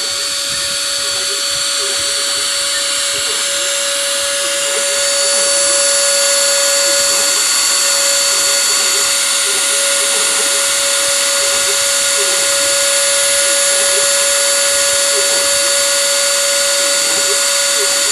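Small CNC machine's spindle motor running with a steady whine and a hiss. The hiss grows louder about five seconds in and then holds steady.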